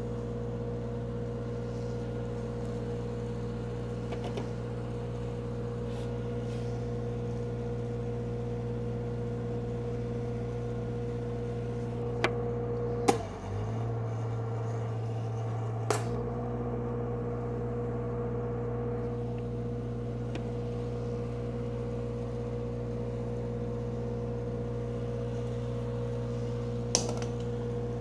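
Engine-driven welder running steadily at high idle. About thirteen seconds in, a sharp crack comes as the two bare welding-cable ends are pushed together and arc under full current, and for about three seconds the engine note changes under the load. Another crack follows as the circuit breaks, and the engine returns to its steady note; a few other short clicks are heard.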